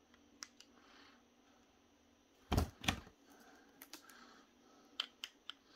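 Handling noise from unpacking a boxed toy: scattered light clicks and taps, with two heavier knocks close together about two and a half seconds in.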